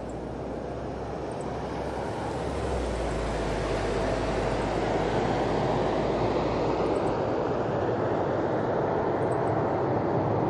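Airbus A380's four Rolls-Royce Trent 970 turbofans at approach power: a steady rushing jet noise that grows steadily louder as the airliner draws near on final approach.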